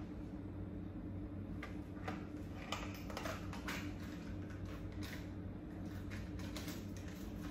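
Small objects being handled at close range, a plastic bottle, tissues and a tablet in a plastic case: scattered light clicks and taps, most of them in the middle stretch, over a steady low hum.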